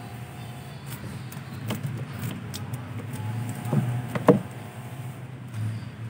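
Scattered light clicks and knocks of wiring and plastic parts being handled inside the washing machine's base, the loudest a sharp knock about four seconds in, over a steady low background rumble.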